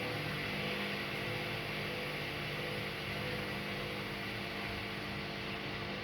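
Haier HW100-1411N washing machine running steadily, a motor hum of several even tones with a hiss over it.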